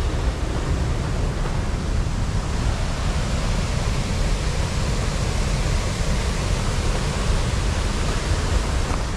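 Water pouring over a river weir: a steady, even rushing.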